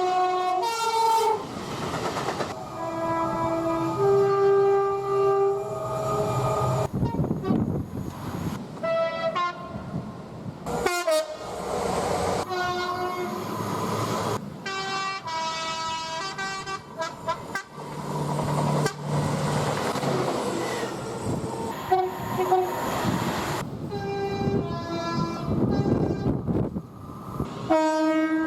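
A run of short clips of train horns cut together abruptly, each with one or more horn blasts. Many are two-tone horns sounding a high and a low note in turn, over the rumble of trains passing.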